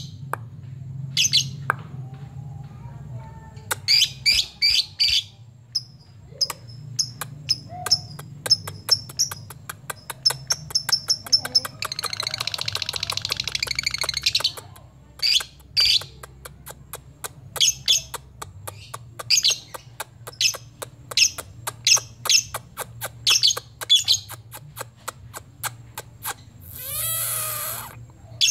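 Lovebird calling: sharp, high chirps repeated in quick runs, with a long rapid chattering trill (ngekek) of about two and a half seconds some twelve seconds in, and a harsh noisy burst near the end. The calls are the male's challenge to summon a rival bird.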